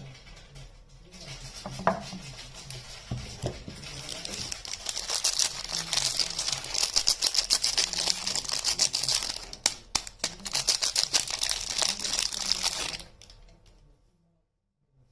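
Soap wrapping being crinkled and torn open: dense rapid crackling that builds over several seconds and stops abruptly about 13 seconds in.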